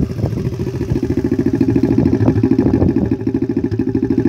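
Small dirt bike engine idling steadily close by, an even rapid putter.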